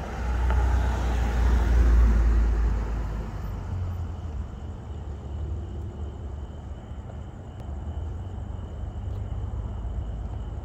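A road vehicle passes close by with a rumble that swells to its loudest about two seconds in and then fades. A steadier low rumble and a faint steady high tone are left behind.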